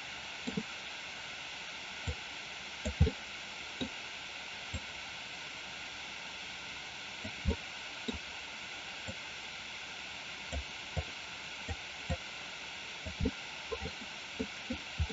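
Steady hiss of an open desk microphone, with soft, irregular low clicks and taps about once a second from mouse handling at the computer.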